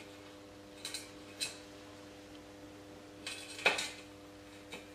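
A few light metallic knocks and clinks, five in all with the loudest a little past halfway, as mitre-cut lengths of steel box section are nudged together into a corner joint on a workbench.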